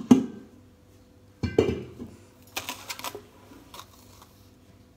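A metal baking pan full of brownie batter handled on a tile countertop: two solid knocks about a second and a half apart, then lighter rattling and scraping as the pan is shifted.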